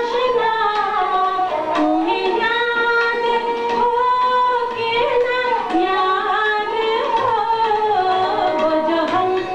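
A woman singing a ghazal in long, drawn-out notes that bend and glide between pitches, with harmonium accompaniment.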